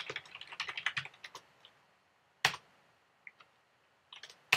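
Computer keyboard being typed on: a quick run of keystrokes in the first second and a half, then single, louder key presses about two and a half seconds in and near the end.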